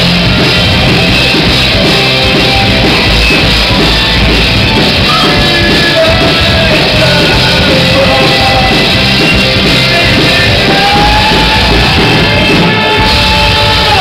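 Live rock band playing loud: drum kit, distorted electric guitars and bass, with a singer shouting and singing over them.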